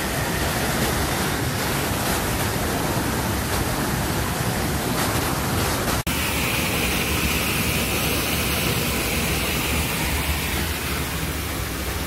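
Waterfall pouring into its pool, a loud, steady rush of falling water. About halfway through it cuts abruptly to fast river rapids rushing over rocks.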